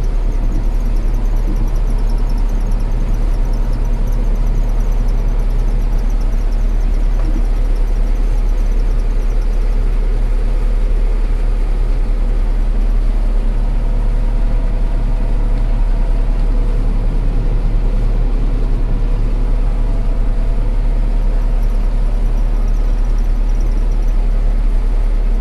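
Combine harvester running steadily under load with a constant low engine hum and machinery noise.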